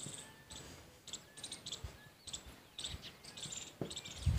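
Marker pen squeaking and scratching across a whiteboard as words are written, in many short, irregular strokes.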